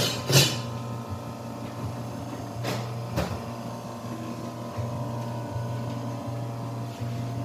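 Steady machine hum made of several fixed tones, from café equipment. Short clatters cut through it, the loudest about half a second in and two more around three seconds in.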